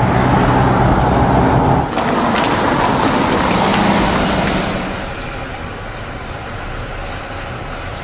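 Car engine and road noise from an open-top Peugeot 206 CC convertible driving, dropping to a lower level about five seconds in as the car slows and pulls up.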